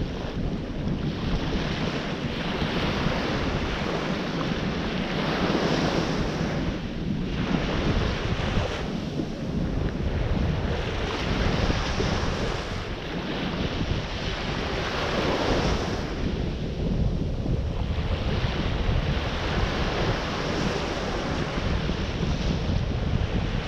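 Ocean surf breaking and washing on a beach, swelling every few seconds, with wind buffeting the microphone.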